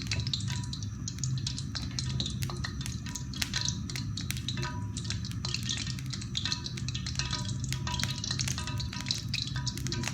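Oil heating in a frying pan, crackling with many quick pops, over background music.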